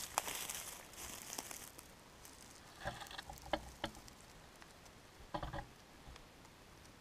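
Footsteps on dry forest floor of pine needles, twigs and litter, crunching and rustling for the first two seconds, then a few separate crackling steps.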